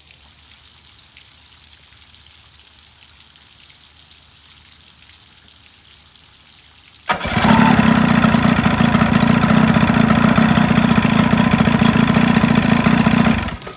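Faint hiss of running water, then about seven seconds in an outboard motor with its cowling off starts on the key, running on its newly wired ignition switch. It runs loud and steady for about six seconds and then cuts off suddenly when switched off.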